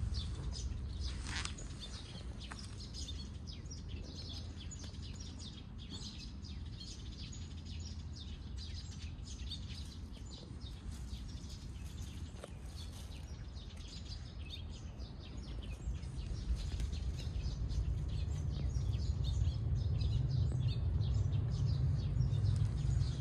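Outdoor ambience: a steady low rumble that grows louder in the second half, under many faint, short, high ticks and chirps.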